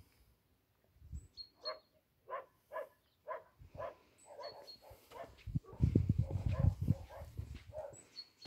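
A dog barking repeatedly, about two barks a second for several seconds. About six seconds in a louder low rumble takes over for a second or two.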